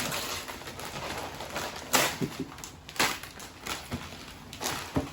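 Gift packaging being pulled and torn open, a steady rustle of paper and plastic with a few sharp snaps and tears.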